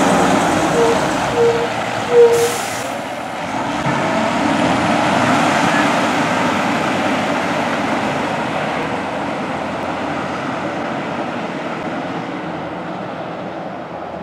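Fire department aerial ladder truck pulling away on an emergency response, its engine and road noise fading steadily as it drives off. A sharp burst of hiss comes about two seconds in, just after a few short toots.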